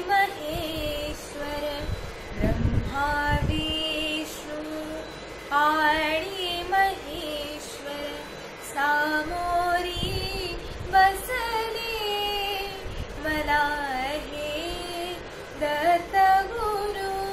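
A woman singing a Marathi devotional song (bhakti geet), holding long notes with wavering ornamented turns between short breaths.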